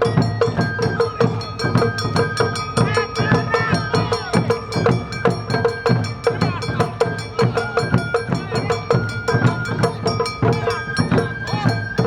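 Awa Odori festival music played live: a bamboo flute melody over taiko drums and a ringing hand gong, struck in a steady, driving rhythm.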